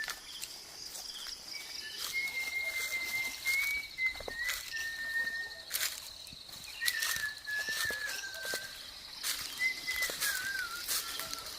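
Birds calling in a series of clear whistled notes of about a second each, some held level and some wavering or dipping in pitch, over a continuous high, fast buzzing trill. Scattered sharp clicks.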